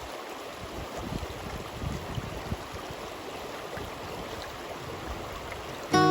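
A river flowing: a steady rush of water. Acoustic guitar music comes in near the end.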